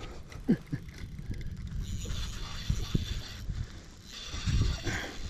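Spinning reel being cranked, its gears whirring in two spells about two seconds and four seconds in, with a few light knocks in between.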